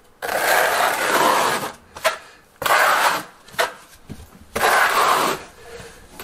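Steel notched trowel scraping across wet thinset mortar on a plywood subfloor, in three long strokes with a few sharp clicks between them.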